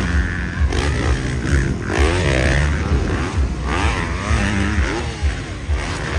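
Several motocross bikes racing, their engines revving up and down over and over in overlapping pitch sweeps.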